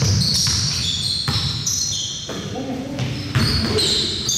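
A basketball game in a gym: a ball bouncing on the court, with irregular thuds, and sneakers squeaking on the floor in short high squeals. Players' voices call out over it, in an echoing hall.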